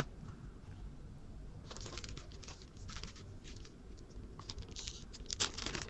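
Plastic bag crinkling and rustling as a remote control is handled in its packaging. The crackling is irregular and faint, getting busier and louder near the end.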